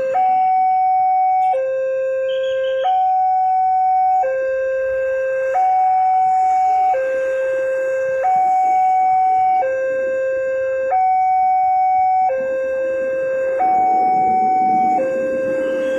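Railroad level-crossing warning signal from the speaker on the crossing pole. It is an electronic two-tone alarm that alternates steadily between a higher and a lower tone, each held about a second and a half. It sounds while the barrier is down to warn that a train is approaching.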